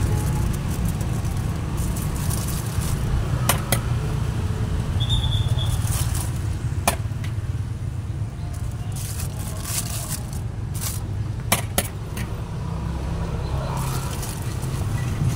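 A metal ladle scrapes and clinks against a wok and the serving containers as capcay is ladled into plastic bags. Several sharp clicks and plastic rustling sound over a steady low rumble.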